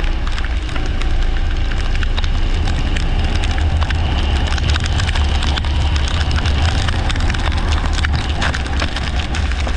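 Leisure kart running on a wet track: a heavy, steady wind rumble on the microphone with a dense crackle of water spray and rain striking it, over the kart's running noise.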